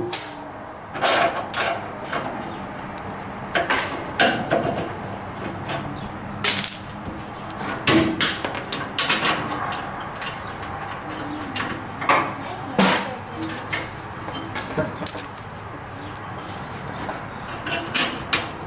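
Irregular metal clanks and clinks as hand tools knock against the steel rear bumper and frame of a Ford F100 while its mounting bolts are worked loose; a few strikes ring briefly.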